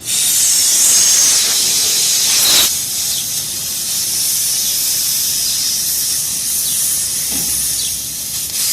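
Pressurised gas hissing out in a loud, steady hiss that starts suddenly and eases slightly after about two and a half seconds.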